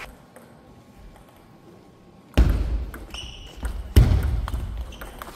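Table tennis play in a hall: quiet at first, then about two and a half seconds in a sharp thud sets off a run of lighter ball clicks and footwork, and a second, harder thud follows about a second and a half later.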